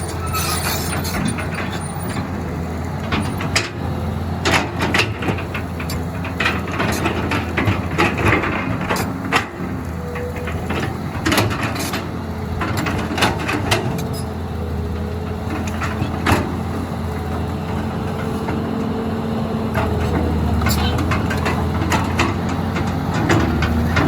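Heavy diesel engine running steadily, a low drone with a held tone, over frequent short knocks and clatters.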